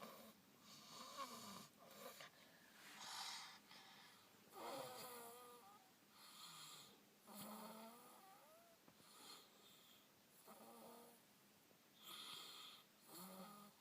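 Faint snoring, one snore every second or two, several of them with a wavering squeaky whistle.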